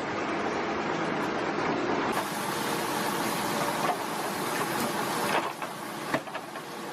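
Heavy off-road vehicle running on a muddy dirt road, its engine and driving noise a dense, steady rumble, with a few short knocks in the second half.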